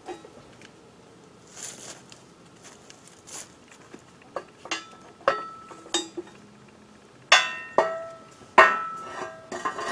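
Old metal ladles clanking against each other and against a metal stand as they are handled and set down, each clank ringing briefly. The first half is quiet; a run of clanks starts about four and a half seconds in, the loudest two near the end.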